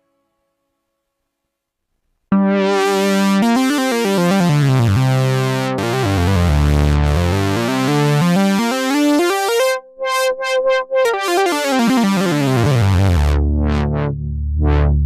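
Sequential Pro 3 synthesizer playing a bright, buzzy tone that comes in abruptly after about two seconds of silence. Its pitch slides down and back up in wide sweeps, with a few brief cut-outs midway and two quick rising-and-falling sweeps near the end.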